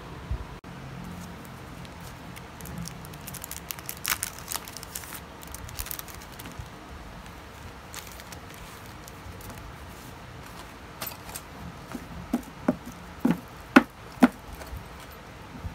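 Scattered light clicks and taps, then a run of five sharper knocks about half a second apart near the end.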